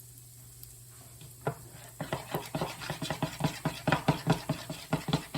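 A kitchen utensil scraping rapidly and rhythmically against cookware, about four strokes a second, starting about two seconds in after a low steady hum and a single knock.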